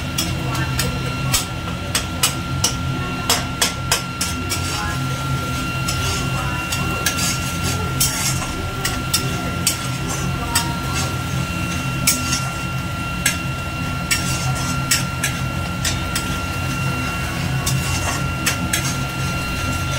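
Metal spatula scraping and knocking against an aluminium kadai, with irregular clicks several times a second, while a spice paste is stirred in oil. A steady low hum runs underneath.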